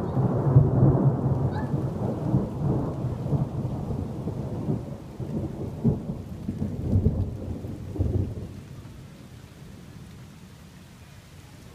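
Thunder rumbling in a long, rolling peal with several louder swells. It dies away after about eight seconds, leaving a faint hiss.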